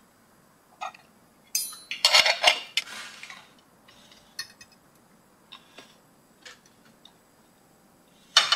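Metal cutlery clinking and scraping against china dinner plates during a meal: scattered clinks, with a busier cluster about two seconds in and another sharp clatter near the end.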